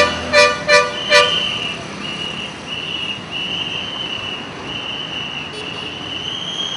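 Vehicle air horn sounding a quick run of short blasts, about three a second, in the first second or so. A high, thin tone then carries on with short breaks over traffic noise.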